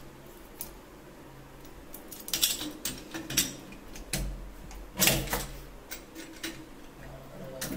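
Pipe wrench knocking and clicking against the brass headgear of a tap as the headgear is tightened back down after a washer change. It is a handful of separate sharp metal clicks, the loudest about five seconds in.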